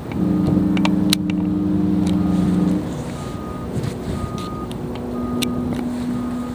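Cruise ship horns sounding a salute between two liners. There is one loud blast of about two and a half seconds just after the start, then a fainter single-tone blast from about five seconds in.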